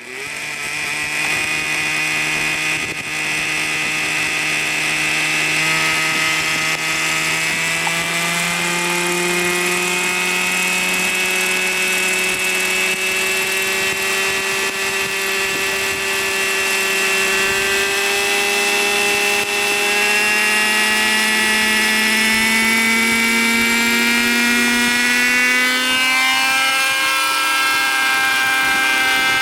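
Hirobo Shuttle RC model helicopter's OS 37 two-stroke glow engine running steadily, its pitch slowly climbing for most of the time and then easing off a little near the end.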